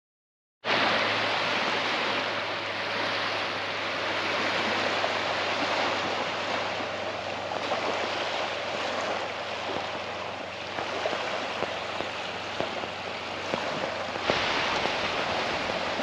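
Surf washing onto a beach: a steady hiss of breaking water that swells and eases slowly, cutting in abruptly just under a second in.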